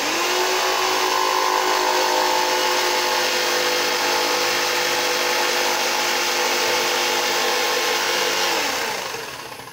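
Handheld electric woodworking power tool switched on, its motor running at a steady high whine, then winding down with falling pitch near the end.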